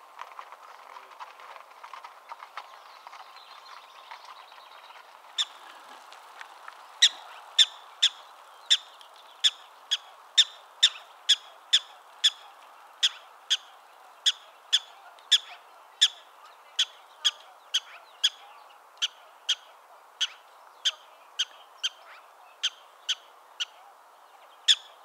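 Black-tailed prairie dog calling: a long series of short, sharp, high chirping barks, about one and a half a second, starting about five seconds in. It is the repeated call that prairie dogs give to warn each other of danger.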